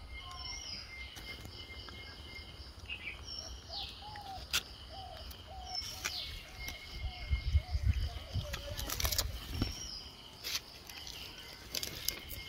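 Outdoor ambience of steady, high insect trilling with scattered short bird chirps. Midway comes a run of about a dozen short, low calls, about two a second, with bumps and rustling close by around the same time.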